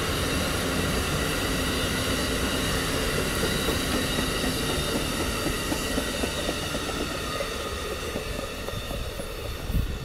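Amtrak passenger cars rolling past at speed: a steady rumble of steel wheels on the rails with repeated wheel clicks and a thin high ringing over it, fading from about seven seconds in as the last car goes by.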